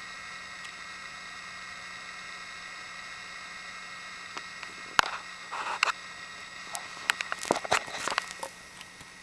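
Conner Peripherals 210 MB 1990s hard drive running with a steady high whine. About five seconds in comes a sharp click, then a short burst, and near the end a quick run of clicks and chatter from the heads seeking.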